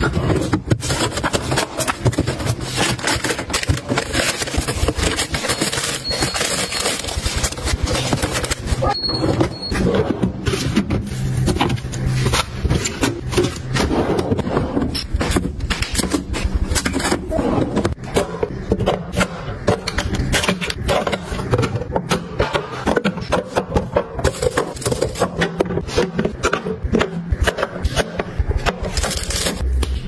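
Plastic storage containers being set onto refrigerator shelves and into drawers: a dense, continuous run of clicks, knocks and scrapes of plastic.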